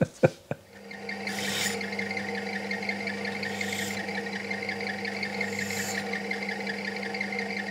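Bench drill press motor running with a steady hum, with three short hissy bursts as the bit cuts shallow divots into a synthetic knife handle scale.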